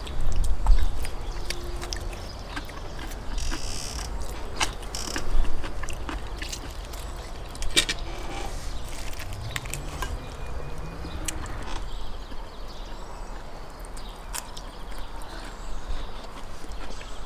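A meal being eaten: chewing, with scattered sharp clicks and clinks of hands and utensils against plates, over a steady low rumble.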